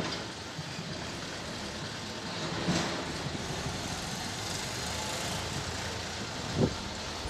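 Fingers rustling and parting hair while picking through it for lice, over a steady background rumble and hiss. Two short knocks, about two and a half seconds in and a louder one near the end.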